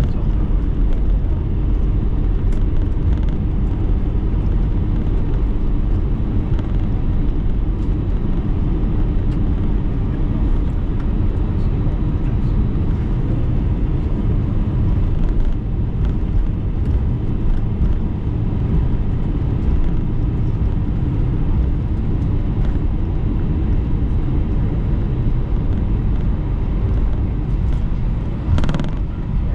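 Steady low rumble of an Airbus A321 heard from inside the passenger cabin, with a brief sharper rattle near the end.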